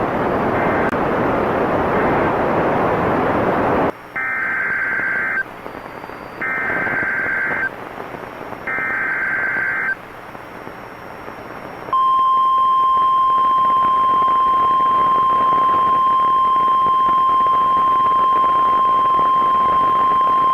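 A rush of radio static, then three short bursts of SAME digital header data about a second apart, followed by the steady single-pitch NOAA Weather Radio warning alarm tone held for about nine seconds. The sequence signals the broadcast of a new warning, here a tornado warning.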